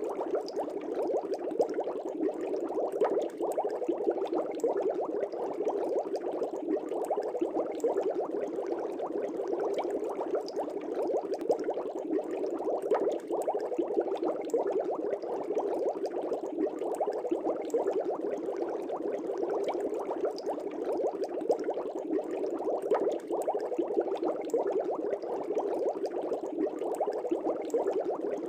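Air bubbles rising through a fish tank, a steady dense bubbling that does not let up.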